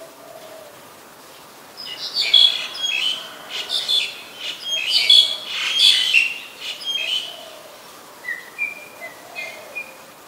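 Black-collared starling singing: a loud burst of harsh, chattering, varied notes lasting about five seconds, then a few softer whistled notes.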